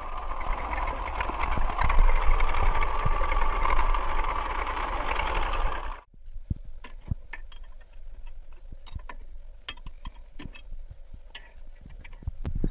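A loud, steady mechanical noise that cuts off abruptly about six seconds in. It is followed by sparse metallic clicks and taps of a spanner on the bolts of a tractor drive-shaft coupling.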